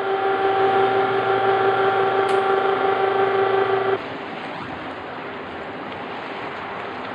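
Electric cable winch hauling in wire rope, its motor running with a steady whine that cuts off suddenly about four seconds in. After that only a quieter, even background noise remains.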